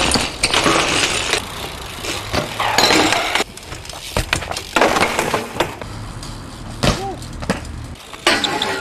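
BMX bikes ridden on concrete ledges and skatepark surfaces: bursts of scraping from grinds and slides, broken by sharp knocks and clatters of landings and bike impacts.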